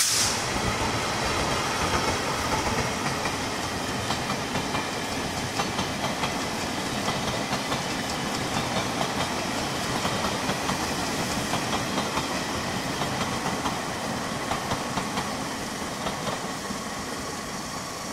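Chu-Kuang Express train, two electric locomotives hauling passenger coaches, passing at speed: steady wheel-and-rail rumble with faint clickety-clack over the rail joints, easing off near the end as the train moves away. Heavy rain hisses throughout, and a sharp knock sounds right at the start.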